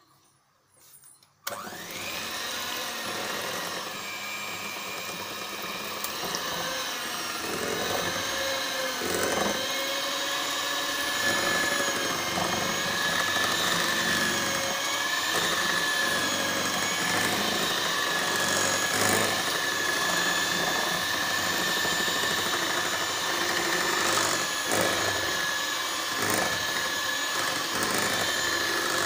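Electric hand mixer switched on about a second and a half in, then running steadily with a motor whine as its beaters whisk wet chocolate cake batter in a glass bowl.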